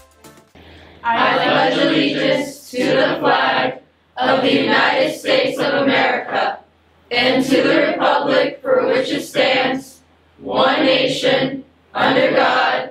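A group of cadets reciting the Pledge of Allegiance together in unison, many voices speaking phrase by phrase with short pauses between phrases, starting about a second in.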